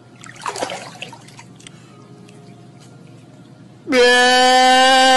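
Faint water splashing and lapping in a swimming pool. About four seconds in, a man breaks into a loud, long crying wail held on one steady pitch.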